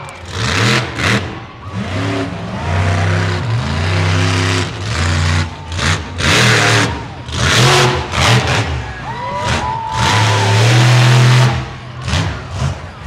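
Monster truck engine revving hard in repeated surges as the truck drives on the dirt, the throttle opening and closing every second or so, with a longer full-throttle pull about ten seconds in.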